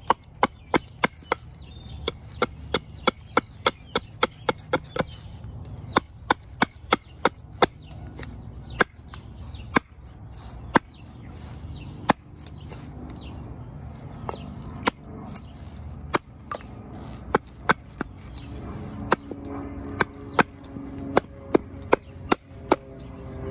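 Hatchet chopping green cherry wood: a run of sharp strikes, fast at first, then more spaced out with short pauses between them.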